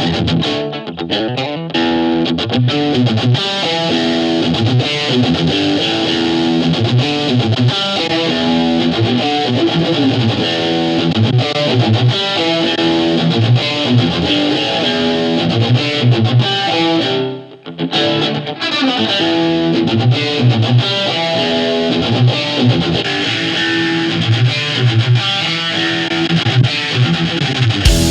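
Electric guitar played through a VOX Mini3 G2 modelling amplifier with its built-in modulation effects engaged, a run of changing notes and chords. The playing breaks off briefly about two-thirds of the way through, then carries on.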